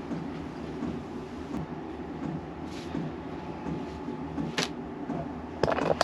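A steady low workshop hum, with a sharp metallic click about four and a half seconds in and a few knocks near the end as engine parts are handled.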